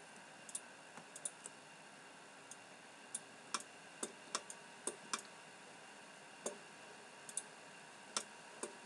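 Computer mouse clicking: scattered, irregular sharp clicks, some in quick pairs like double-clicks, over a faint steady background hiss.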